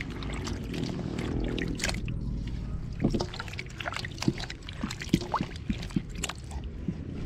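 A hand swishing and rubbing peeled yam and breadfruit chunks in a metal basin of water to wash them: sloshing and trickling water with frequent small, sharp knocks.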